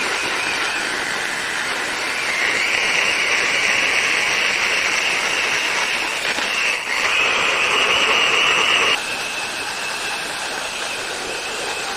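Electric saw cutting through wood: a loud, steady, rushing whine from the loaded blade, with a brief dip near the middle. About three-quarters of the way through it drops suddenly to a quieter, steadier whine as the cut ends and the blade keeps spinning.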